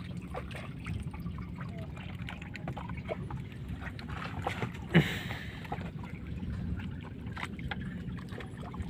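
Wet gill net being hauled in over the side of a fishing boat, water trickling and dripping off the mesh, with scattered small clicks and knocks over a steady low hum. A single sharp knock about five seconds in.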